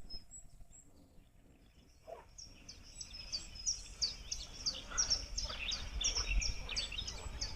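A songbird singing a long run of quick, evenly repeated high chirps, about three a second, starting about two seconds in and growing louder.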